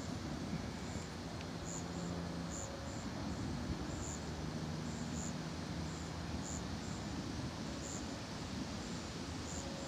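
Insects chirping in the dark: short, high chirps about twice a second, irregularly spaced, over a steady background rush.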